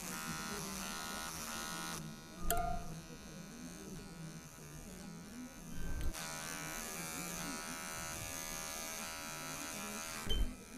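Electric hair clipper running with a steady buzz, its tone shifting slightly a couple of times, with three short dull knocks at about two and a half, six and ten seconds in.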